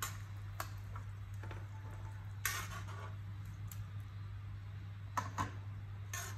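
Metal tongs clinking against a metal pan of water as broccoli is turned. There are several sharp, separate clinks, the loudest about two and a half seconds in and just after five seconds.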